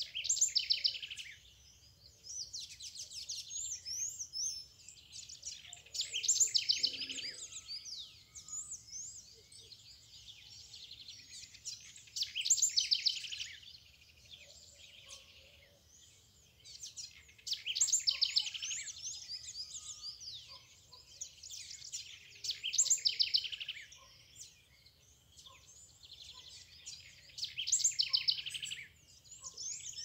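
Songbirds singing at a backyard feeder. A loud, rapidly trilled high phrase repeats about every five to six seconds, with softer chirps and phrases in between.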